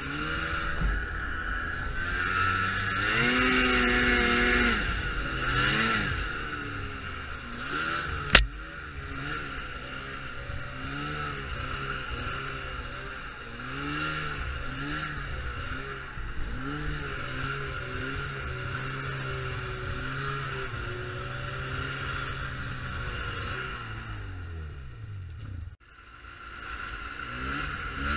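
Ski-Doo Expedition Sport 550F snowmobile's fan-cooled two-stroke twin running while riding, its revs rising and falling with the throttle and climbing hard a few seconds in. A single sharp click cuts through about a third of the way in, and the sound drops out for a moment near the end.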